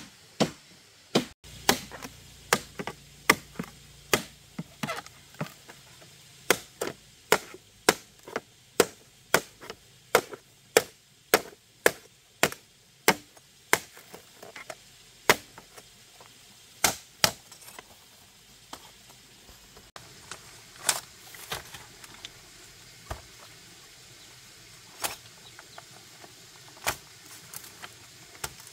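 Repeated sharp strikes of a tool on wood, about two a second, thinning out to occasional strikes every second or two in the later part.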